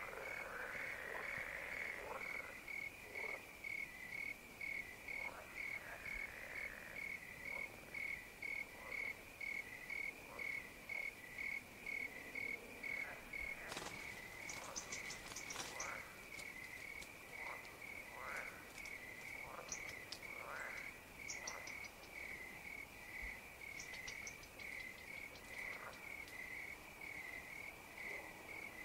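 A cricket chirping steadily, about two chirps a second, over scattered frog calls. The frog croaking is strongest at the start, and short high-pitched chirps come in about halfway through.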